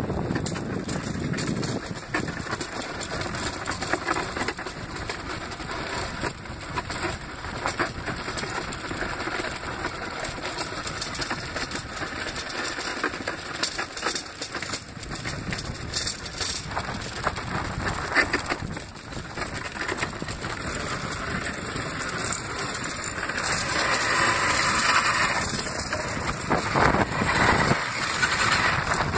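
Iceboat runners sliding over rough ice at speed: a steady scraping hiss full of sharp clicks and rattles, louder for a stretch near the end.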